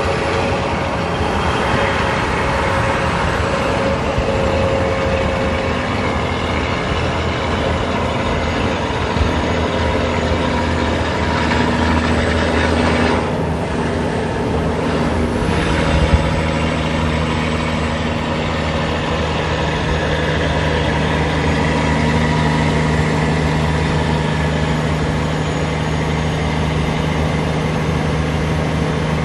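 Semi truck's diesel engine running steadily at highway speed in the next lane, mixed with tyre and wind noise. The drone holds even throughout.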